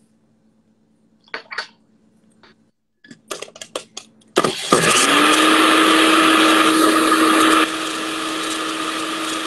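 A few clicks and knocks as the lid goes onto a countertop blender jar, then the blender starts and runs steadily, blending plant milk with chia seeds. About three seconds after it starts, the noise drops to a lower level and keeps running.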